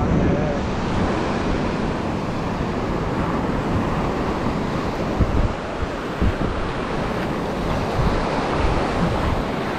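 Ocean surf breaking and foamy wash running up over the sand, a steady rushing sound. Wind buffets the microphone with a few low thumps midway.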